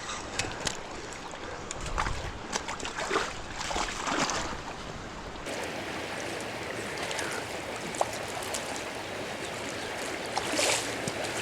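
River water flowing steadily, with scattered short splashes and knocks in the first half.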